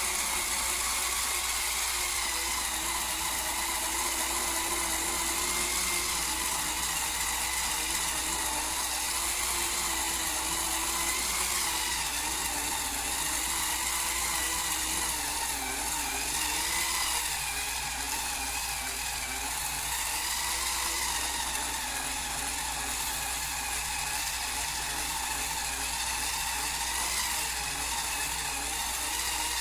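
Hurricane Spin Scrubber's cordless electric motor whirring steadily as its rotating brush head scrubs, the pitch wavering slightly.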